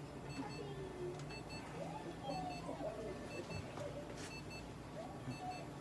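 Medical light-therapy unit beeping in short, high double beeps about once a second while it irradiates, over a low steady equipment hum.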